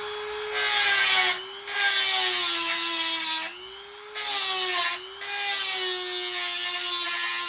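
A small high-speed power tool running with a steady whine, cutting or grinding in four loud rasping passes that start and stop abruptly over the motor's tone.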